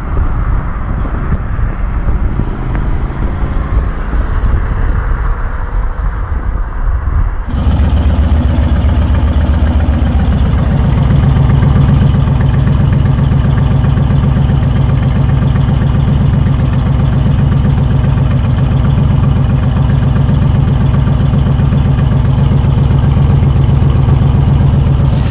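Honda VT1300 V-twin engine, first running at road speed with rushing wind noise, then, after a cut about seven seconds in, idling steadily through twin chrome exhaust pipes with an even, pulsing beat that grows a little louder about ten seconds in.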